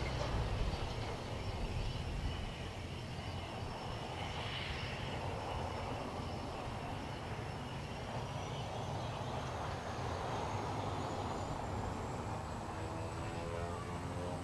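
Cessna 208B Grand Caravan's Pratt & Whitney PT6A turboprop running on the runway: a steady propeller and engine rumble with a thin high turbine whine that rises in pitch about eight seconds in. Music fades in near the end.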